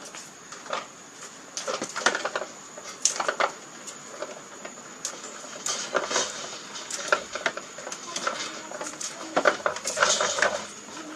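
Small majo palm fruits (Oenocarpus bataua) being pulled by hand off their fruit stalk: irregular snaps, clicks and rustles, heaviest around two seconds in and again near the end. A thin, steady high tone runs underneath.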